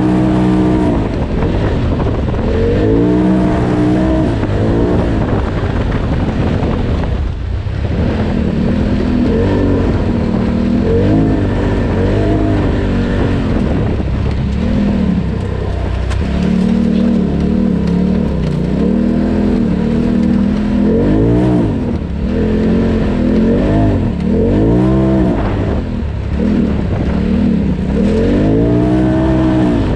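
Polaris RZR Turbo side-by-side's turbocharged twin-cylinder engine under hard throttle, its pitch rising and falling over and over as it revs up and backs off. The engine briefly drops off about seven seconds in before pulling again.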